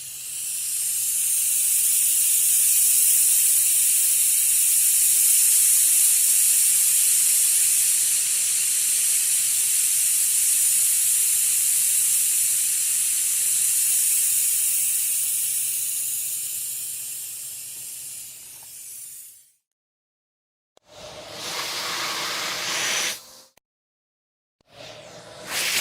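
Industrial air compressor letting out compressed air: a loud steady hiss over a faint low hum, tapering off and stopping about 19 seconds in. After a short silence come two shorter hissing bursts with a rougher, lower tone.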